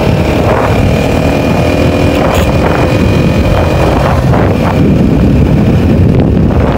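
Motorcycle riding along at a steady speed: the engine runs evenly, with wind rush over the microphone.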